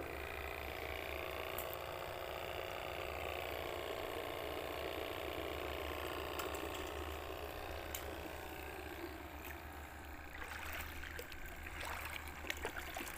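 Shallow seawater trickling and swishing steadily around a mesh shrimp trap held in the water, with a steady low hum underneath; in the last few seconds it turns into short splashes and clicks as the trap is lifted and the wader moves through the water.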